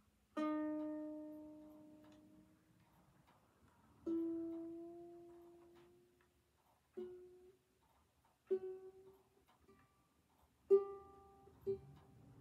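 A Flight Designer Series Orchid ukulele with new Aquila strings being tuned: single open strings plucked one at a time, about six notes, the first two left to ring out for a couple of seconds and the later ones shorter. One ringing note creeps up slightly in pitch as its tuning peg is turned.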